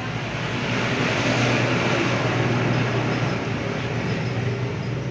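Engine running with a steady low hum, and a louder wash of noise that swells about a second in and fades again by about three seconds.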